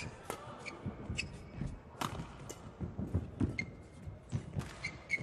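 Badminton rally: rackets striking the shuttlecock every second or so, with shoes squeaking in short bursts and footsteps thudding on the court mat.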